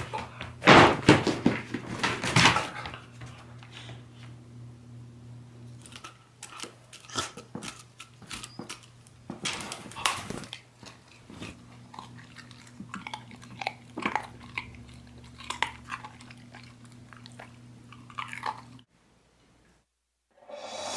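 Beagle snapping and biting at a carrot dangled on a string: a run of sharp crunching bites and jaw snaps, busiest in the first few seconds and coming in scattered bursts after that. The sound cuts off about two seconds before the end.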